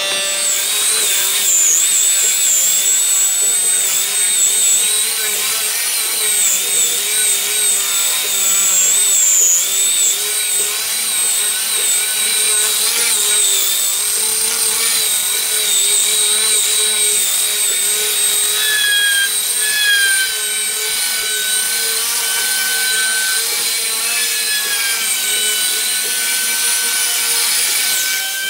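Electric rotary disc sander (a large angle-grinder-type machine with a hook-and-loop sanding pad) running steadily while sanding the flat face of a hardwood stair tread. A steady high motor whine sits over the scratch of the abrasive on the wood.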